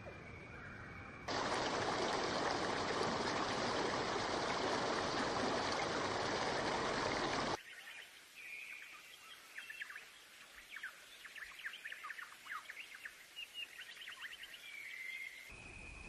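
A steady rush of running water for about six seconds, stopping abruptly. It gives way to many small birds chirping in quick, short calls.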